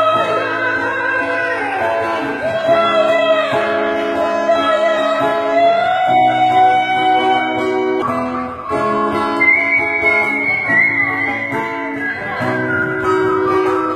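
Guitar music: plucked chords under a long-held, slightly wavering melody line that steps to a higher note about nine seconds in.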